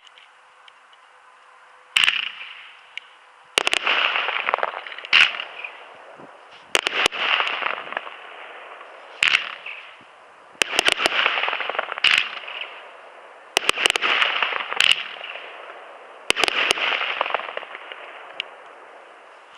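Firework fan cake (Roeder-Feuerwerk Kunterbunt) going off: a steady hissing at first, then a series of sharp shots about every one and a half seconds, each followed by a crackling hiss.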